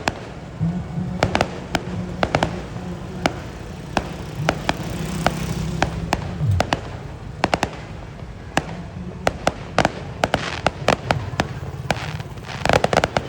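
Fireworks going off in sharp bangs and crackles at irregular intervals, with a quick run of reports near the end.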